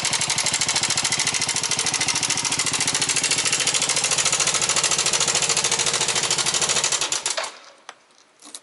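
Yamaha NMAX125 scooter's single-cylinder engine idling with a rapid, even clatter of about a dozen pulses a second: the sudden rattling noise ('kara-kara-kara') that appeared at 10,000 km. The engine is switched off about seven seconds in, leaving a few faint clicks.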